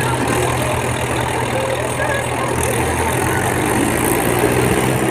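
Diesel tractor engine running steadily at idle: a continuous low hum with no revving.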